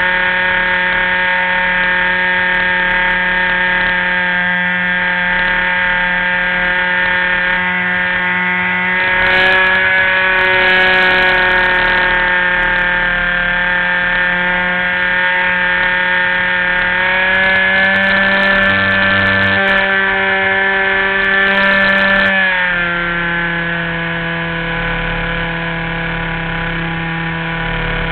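RC model airplane's motor running steadily in flight, heard from on board. Its pitch rises slightly about a third of the way in and again past the middle, then drops back lower a few seconds before the end.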